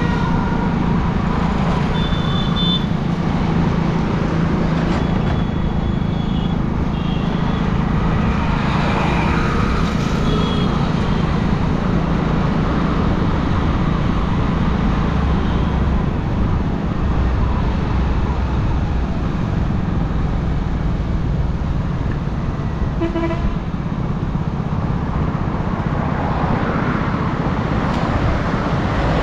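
Motorcycle ride through traffic heard from a helmet-mounted camera: the bike's engine runs steadily under constant road and wind noise. Other vehicles' horns toot briefly several times.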